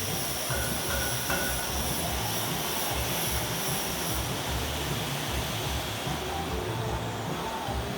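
Metal lathe running steadily, with a low rumble and a thin high whine that fades out about halfway through.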